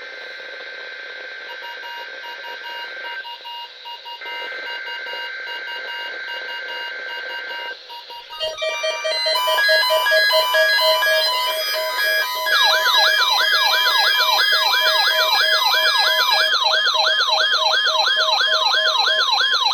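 NOAA Weather Radio Required Weekly Test: the buzzy data tones of the alert header come in two long bursts with a short break. From about eight seconds in, weather radio alert receivers set off their alarms, layered beeping tones over a steady tone. About twelve seconds in they are joined by a fast, repeating warbling siren-like alarm.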